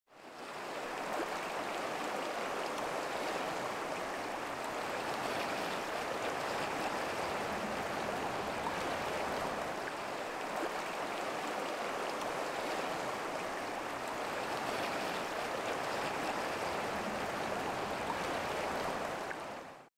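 Stream water flowing and rippling, a steady rushing wash that fades in at the start and fades out at the end.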